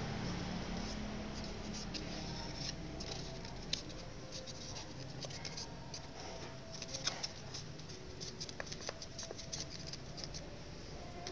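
Sheet of origami paper rustling and crinkling as hands fold and crease it: a run of small, irregular crackles and taps.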